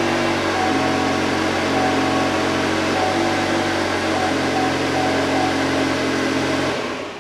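Cadillac ATS engine idling on a freshly installed battery, its speed shifting slightly up and down. It shuts off near the end.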